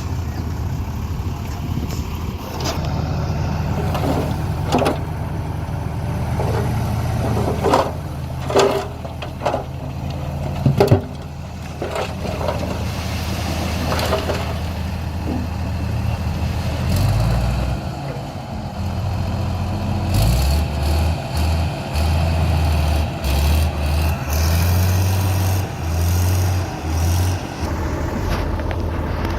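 Heavy diesel dump truck engines running with a steady low drone, with several sharp metallic knocks and clanks in the first half. In the second half an engine revs in short repeated surges.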